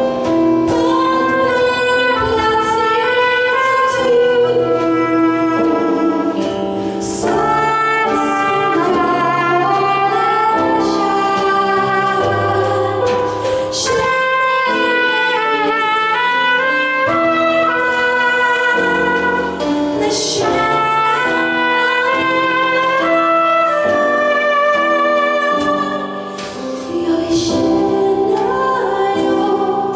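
Live small-band jazz: a woman sings a slow melody in Swedish, accompanied by piano and drums, with a trumpet playing lines around her voice.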